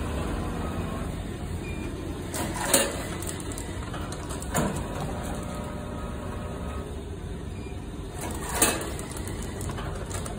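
Vertical form fill seal packaging machine running with a steady mechanical hum, and three louder clacks as it cycles, the first and last with a brief hiss.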